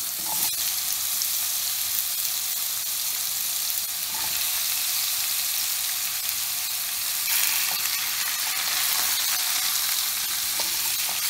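Pumpkin cubes sizzling in hot oil in a stainless steel pan as they are dropped in by hand, with a few small knocks of pieces landing. The steady hiss grows a little louder about two-thirds of the way through, and near the end a wooden spatula stirs the pieces.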